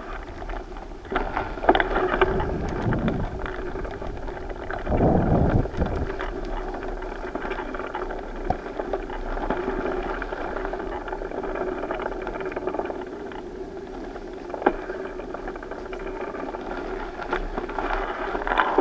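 Loaded touring bicycle rolling slowly over rough asphalt, heard from a camera mounted on the bike: steady tyre and road noise with scattered clicks and rattles from the bike and its panniers, and a brief low rumble about five seconds in.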